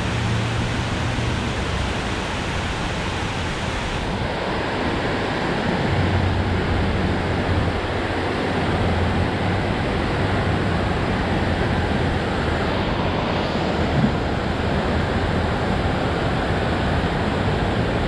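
Steady rush of water pouring over a low-head concrete dam spillway close by, with a low rumble underneath and one light knock about fourteen seconds in.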